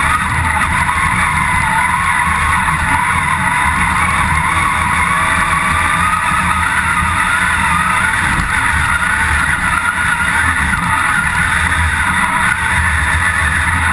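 Engine of an off-road 4x4 competition vehicle running hard under load, heard from inside its stripped cabin, loud and steady with its pitch drifting up and down with the throttle.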